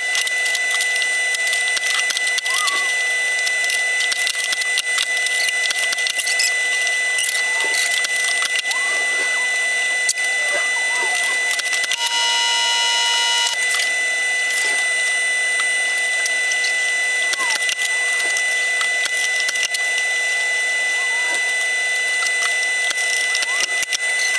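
Sped-up workshop sound of oak battens being fixed to a plywood cabinet side: a dense run of quick clicks and knocks, with small squeaky chirps and a steady high tone throughout, and a brief buzzing tone about twelve seconds in.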